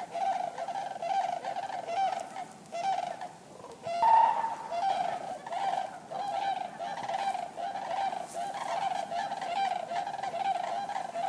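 Common cranes calling: a dense run of repeated trumpeting calls, with a short lull about three seconds in and a louder call just after four seconds.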